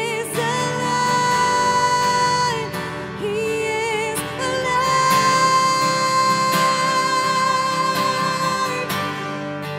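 A woman singing two long held notes over a strummed acoustic guitar: the first for about two seconds, the second for about four.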